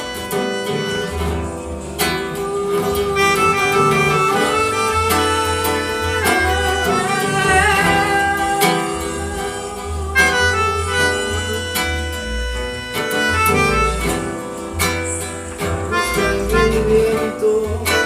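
A small acoustic ensemble playing an instrumental break of a trova song: a lead melody over steady bass notes, with no singing.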